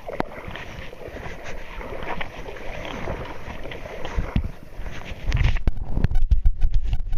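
Rumble and knocking on the camera's microphone from handling and wind, much heavier and louder in the last two seconds.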